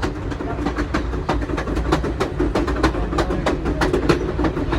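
Railway passenger car rolling along the track: a steady low rumble with frequent, irregular rattles and clicks.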